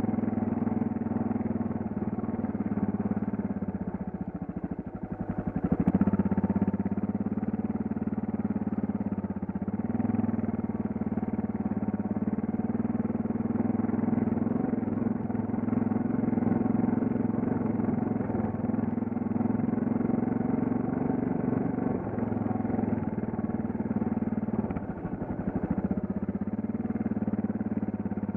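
Suzuki DR650's single-cylinder four-stroke engine running steadily under way. It eases off about four seconds in and picks up again about six seconds in.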